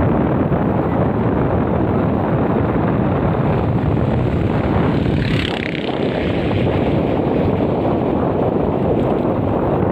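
Wind rushing over the microphone of a moving vehicle, a loud, steady rumble of noise with the vehicle's road noise beneath it. It eases briefly about five and a half seconds in.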